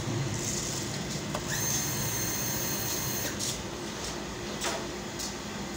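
Gas burner of a small boiler running steadily, a constant mechanical hum and rush, as the boiler builds pressure after a smooth start on gas. A high whine sounds for about two seconds starting a second and a half in, and a few light clicks follow near the end.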